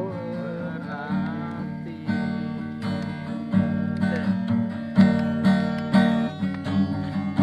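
Background music: an Indonesian love song with acoustic guitar. A sung line ends about a second and a half in, then strummed guitar carries on with a steady beat.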